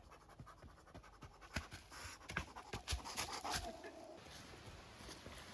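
Footsteps crunching on a forest hiking trail, a quick run of sharp steps that are loudest in the middle, with a faint whine falling in pitch about three seconds in.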